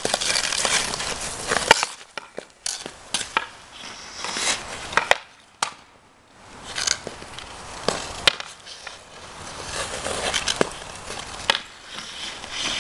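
Hockey skate blades scraping and carving across the ice in repeated hissing strokes, with several sharp clacks of a hockey stick hitting the puck and the ice.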